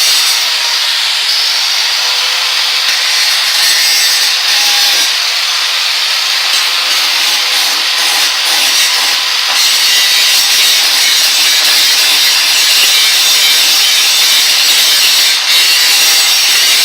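Grinder grinding metal, cleaning up the underside of a vise's mounting plate: a steady, loud rasp with a faint motor whine beneath it, dipping briefly about fifteen seconds in.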